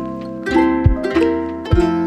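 Background music: a plucked-string melody of held notes over a low beat that falls about once a second.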